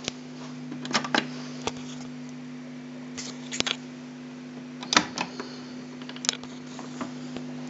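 Steady low electrical hum from a switched-on Tandberg TCR712 cassette recorder, with scattered sharp clicks and knocks of handling, the loudest about five seconds in.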